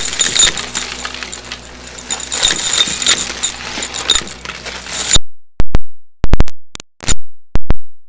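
Shark Lift-Away upright vacuum running with a high whine, confetti and glitter rattling and crackling as it is sucked up. About five seconds in the vacuum sound cuts out abruptly, leaving several loud, sharp pops from a faulty new microphone.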